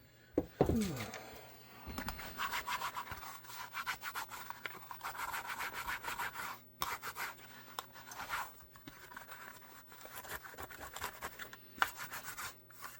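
Rapid back-and-forth rubbing on a holster shell, cleaning leftover marks from around a hole. A brief squeak falling in pitch comes just under a second in.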